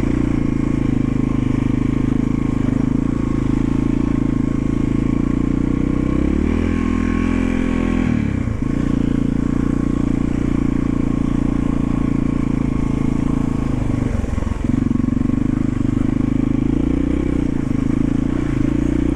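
1991 Yamaha XT350's single-cylinder four-stroke engine running steadily while riding. The revs rise about six seconds in and drop sharply a couple of seconds later, with another brief dip a few seconds after that.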